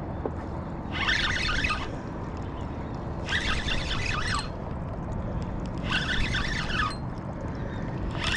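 Spinning reel being cranked in short bursts, about a second of winding roughly every two and a half seconds, four times, the reel's gears whirring as the lure is worked back.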